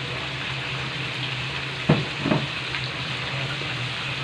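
Chicken pieces cooking in spiced liquid in a wok on a gas stove, a steady sizzling hiss. Two brief knocks come about two seconds in.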